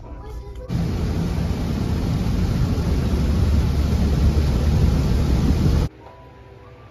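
Heavy rain hitting a moving car's windshield and roof, heard from inside the car along with wet-road tyre noise: a loud, even hiss with a deep rumble underneath. It starts suddenly just under a second in and cuts off abruptly about a second before the end.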